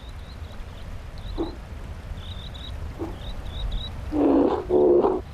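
Grizzly bears vocalising during a standoff: two short, low calls, then near the end two loud, drawn-out moaning calls in quick succession.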